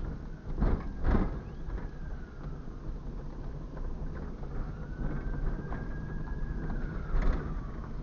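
Car driving, heard from inside the cabin: a steady low rumble of engine and road noise, with a few sharp knocks about a second in and again near the end.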